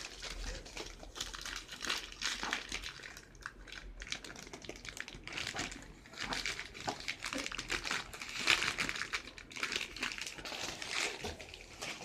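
Clear plastic bag around a laptop crinkling and rustling as hands pull and unwrap it: irregular crackles that come and go in handfuls.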